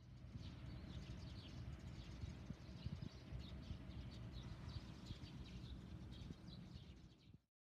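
Small birds chirping, many short high chirps, over a faint low rumble of outdoor background noise.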